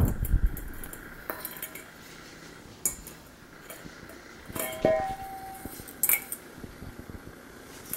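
A stainless steel dog food bowl knocked and pushed around by a puppy: a dull rumbling scrape at the start, then several separate metallic clanks, one about five seconds in ringing briefly.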